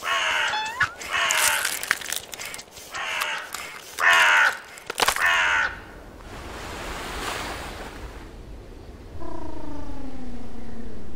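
Cartoon hermit crab character's voice: five short cries with bending pitch, then a soft swelling hiss, then one long call that slides slowly downward near the end.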